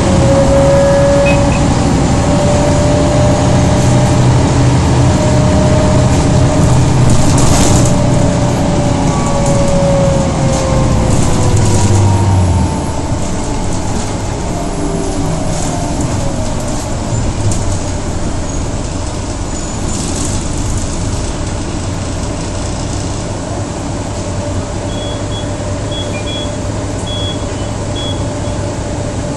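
Mercedes-Benz O405G articulated bus heard from inside the cabin: the diesel engine and ZF automatic gearbox running loudly with a gearbox whine that rises and then falls in pitch. About twelve seconds in the sound drops to a quieter, steady drone.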